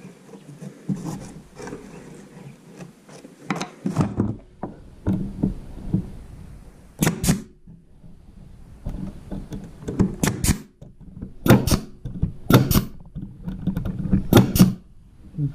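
Pneumatic stapler shooting staples into a plywood marten box: sharp snaps in quick pairs, about five pairs starting about seven seconds in. Before that, plywood pieces are handled and knock against the workbench.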